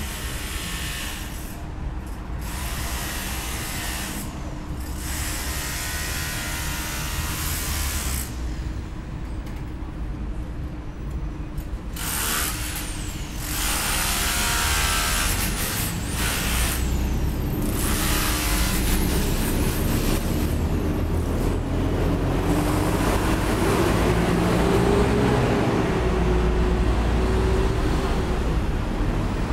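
City street traffic: constant road rumble with several sharp bursts of hiss in the first half, typical of air brakes. Through the second half a heavy vehicle's engine note rises and falls as it drives past, and the whole sound gets louder.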